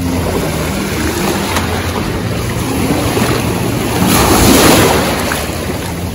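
Shallow seawater sloshing and splashing around wading legs and a clear plastic kayak as a person climbs aboard, with wind on the microphone. A louder surge of splashing comes about four seconds in.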